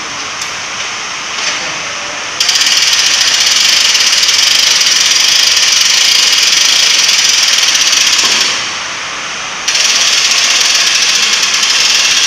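An electric motor running steadily in two stretches. It starts about two seconds in, dies away at about eight and a half seconds, and starts again about a second later. It sounds as a high, fast-pulsing buzz.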